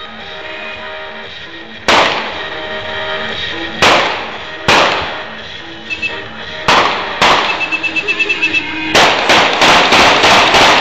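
Loud sharp explosive bangs over music. A few single cracks come first, then a fast rattling string of about eight a second, then a dense volley near the end.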